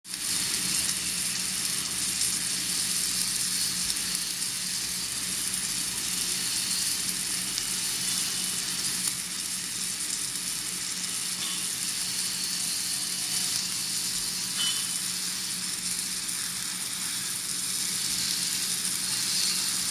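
Submerged arc weld running under a bed of granular flux on a steel beam: a steady crackling sizzle, with a steady low hum underneath.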